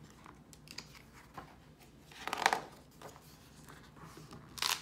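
A page of a hardcover picture book being turned by hand: a paper swish about two seconds in, and a second, shorter one near the end.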